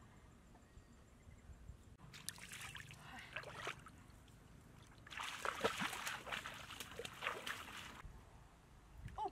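Water splashing and sloshing as someone wades through a shallow muddy pool and pushes a woven bamboo fish trap down into it, in two bouts: a shorter one about two seconds in and a longer, louder one from about five seconds in.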